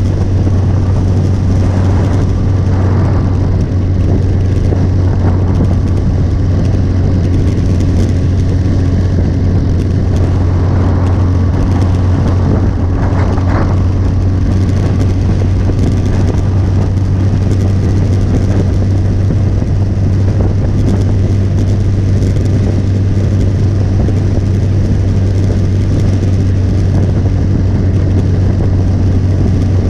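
Motorcycle engine running steadily at cruising speed, with wind and road noise from riding.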